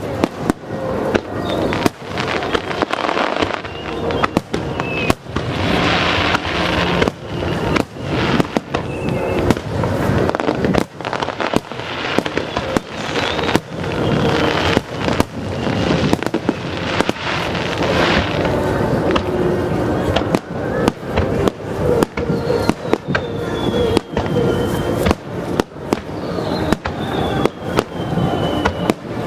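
Aerial fireworks shells bursting in rapid, overlapping succession, booms mixed with crackling, with music playing underneath. Several falling whistles are heard in the last few seconds.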